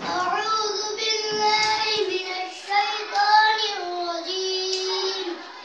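A young girl singing solo, unaccompanied, moving between notes and holding some of them long.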